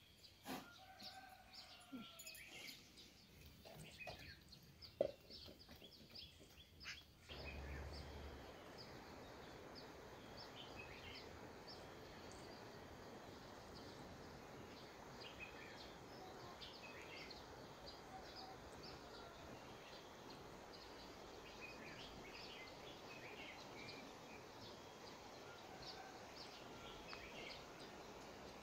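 Faint outdoor ambience with scattered small bird chirps throughout. There are a few light knocks in the first seconds, and a steady background hiss from about seven seconds on.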